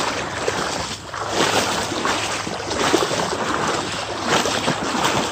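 A person wading through floodwater, the water sloshing and splashing around their legs with each stride, swelling about every second and a half.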